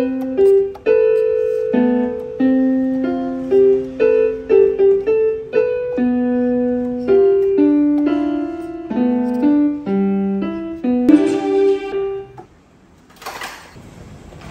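A tune played with two hands on a Yamaha portable electronic keyboard set to a piano voice, each note ringing and fading. The playing stops about two seconds before the end, followed by a short burst of noise.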